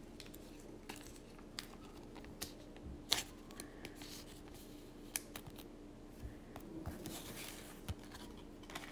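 Faint rustling and scattered light clicks of hockey trading cards being handled: a card is slid into a clear plastic sleeve, then a stack of cards is flipped through.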